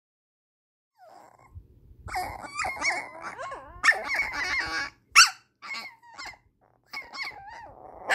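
Two puppies play-fighting, starting about a second in: high-pitched squeaky growls and whines, with two sharp yaps that are the loudest moments, about four and five seconds in.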